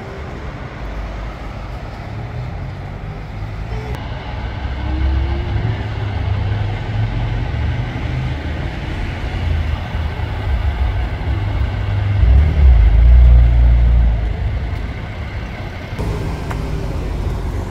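City street traffic: buses and cars passing, with a heavy low rumble that swells and is loudest a little past halfway.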